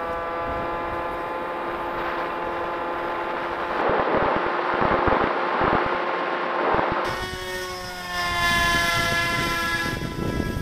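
Electric motor and propeller of a Volantex Ranger 1600 RC plane whining at a steady pitch, heard from its onboard camera. From about four to seven seconds a rush of wind noise covers it. The whine then comes back with its pitch sliding as the throttle and speed change.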